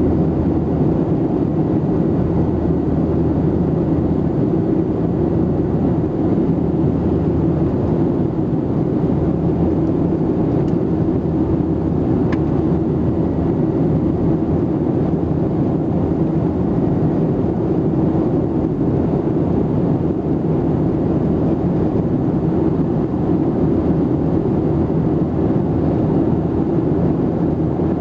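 Steady roar of a Boeing 737-700's CFM56-7B jet engines and airflow heard inside the passenger cabin, even and unchanging, with most of its weight in the low range and a faint high steady tone.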